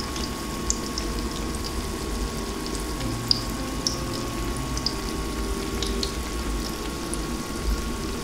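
Onde-onde (sesame-coated glutinous rice balls) frying in hot oil: a steady bubbling sizzle with scattered small pops and crackles, over a low steady hum.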